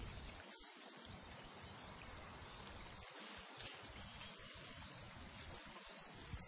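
Faint, steady, high-pitched insect chorus, a continuous drone with no breaks.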